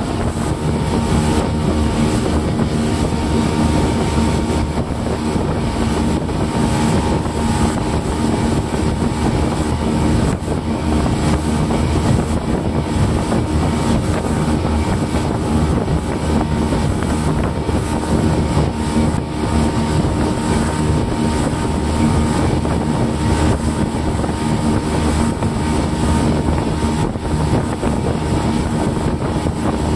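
An SJX 2470 jet boat's engine running at a steady cruise, heard from inside the cabin, with a constant rush of wind and water over it.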